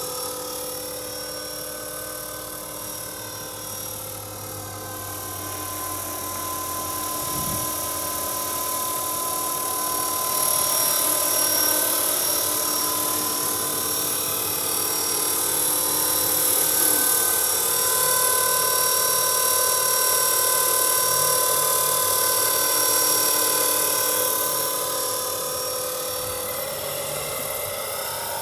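Radio-controlled Roban MD500 'Little Bird' scale model helicopter in flight: a steady whine from the motor and gears mixed with rotor noise. It grows louder about ten seconds in and eases off again near the end.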